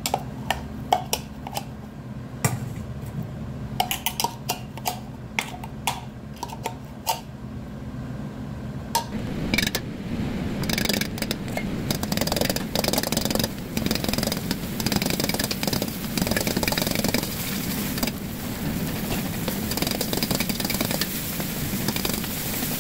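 A metal spoon clicks and scrapes inside a plastic blender cup as blended abalone innards are scooped out, over a steady low hum. About nine seconds in, a ladle starts stirring and scraping in a wok over a lit gas burner, with sesame oil, minced garlic and abalone innards sizzling.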